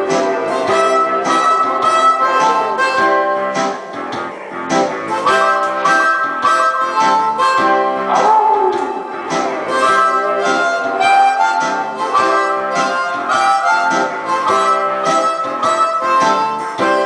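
Blues harmonica played cupped against a hand-held microphone, held notes and bends over a steady rhythmic backing beat.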